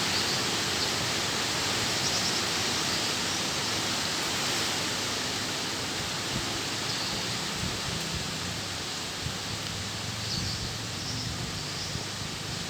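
Strong wind blowing steadily through trees, a continuous rush of leaves that eases slightly toward the end, with faint high chirps now and then.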